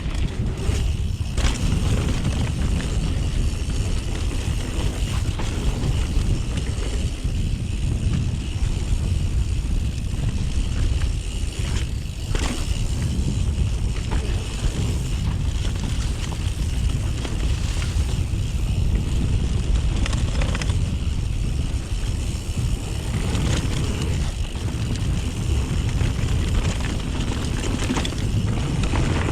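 Wind buffeting a chest-mounted action-camera microphone over the continuous rolling rumble and rattle of a YT Jeffsy full-suspension mountain bike descending a trail, with sharp knocks from bumps about a second in and again near twelve seconds.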